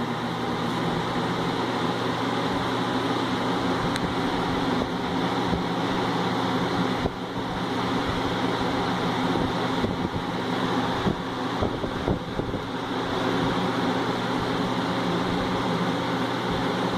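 Galaxy 4733 electric fan running on its high setting: a steady whoosh of air from the blades over a constant motor hum.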